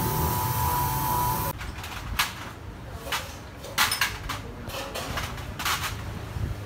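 Steady background noise with a faint whine that cuts off about a second and a half in, followed by several short, light clicks and clacks as a motorcycle engine's cylinder and cam sprocket are handled.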